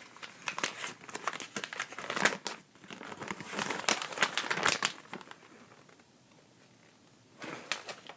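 Packaging crinkling and rustling as it is handled, in a dense run of crackles, then a quiet gap of about two seconds before the crinkling starts again near the end.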